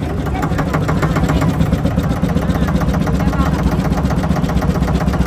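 Boat engine running steadily, a low fast-pulsing drone.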